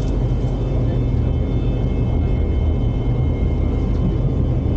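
Steady low rumble of a moving light-rail train heard from inside the passenger carriage, with a faint, high, steady whine above it.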